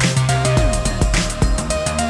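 Background music: an electronic track with a steady beat over sliding low notes.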